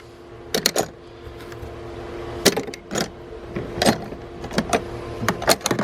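Metal hand tools clanking as they are put back into a steel tool chest drawer: a string of separate clinks and knocks over a steady low hum.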